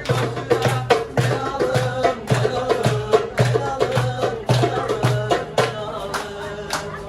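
Music with a steady drum beat, about two strokes a second, under a melody; the drums stop near the end, leaving held notes.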